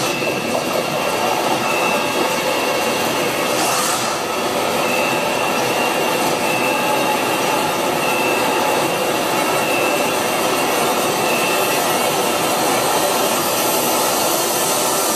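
Dense, steady noisy drone from a horror film's sound design, with a faint high tone that comes and goes.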